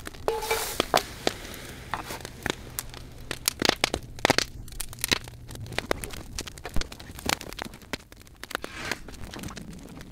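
A wood campfire crackling, with many sharp snaps and pops. Just after the start, snow is tipped into a cast-iron Dutch oven hanging over the fire, a brief crunching rush.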